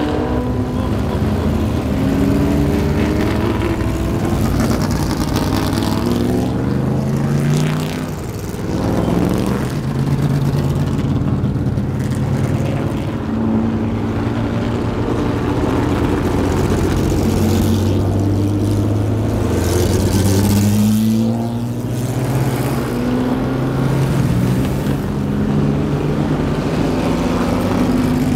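Vintage race car engines accelerating past and away one after another, each pitch rising in repeated steps as the cars shift up through the gears.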